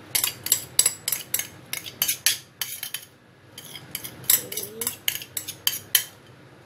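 A thin plastic bag crinkling as it is handled, in quick runs of sharp crackles with a short lull about halfway through; it stops about a second before the end.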